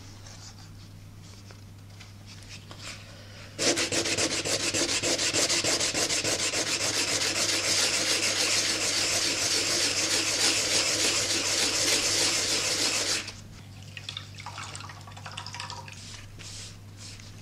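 Very fine automotive sandpaper rubbed in rapid back-and-forth strokes over a hardened lacquer panel. This is a first sanding pass through the layers of lacquer to bring up the eggshell inlay beneath. The sanding starts a few seconds in, runs for about ten seconds and stops abruptly.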